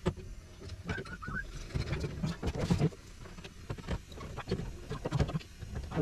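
Irregular clicks, taps and rustles of hands handling wires and small parts in a gas furnace's sheet-metal cabinet.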